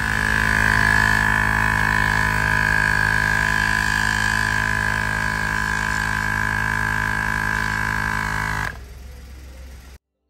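Portable air compressor running steadily with a fast pulsing hum as it inflates a low motorcycle tyre; it stops suddenly near the end.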